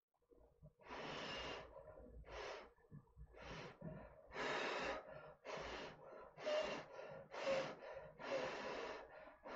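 A person slurping thin instant ramen noodles up from chopsticks: a run of about nine short, airy slurps, each under a second.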